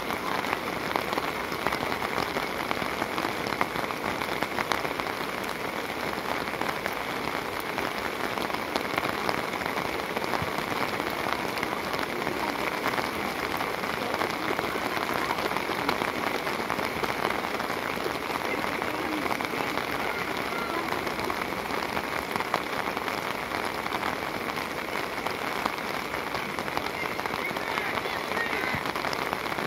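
Steady rain falling, an even hiss of drops with many small close taps.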